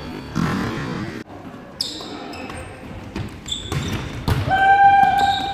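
Indoor volleyball play in an echoing sports hall: sharp slaps of the ball being struck and players' voices. A long, steady high squeal near the end is the loudest sound.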